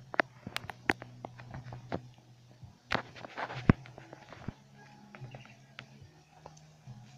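Footsteps crunching and rustling through dry fallen leaves and twigs: irregular crackles and snaps, busiest and loudest about three to four seconds in. A faint steady low hum lies underneath.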